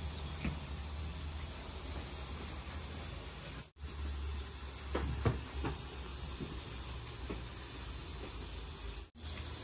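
Steady high hiss over a low hum of background machine or room noise, with a few faint knocks about halfway through; the sound cuts out briefly twice.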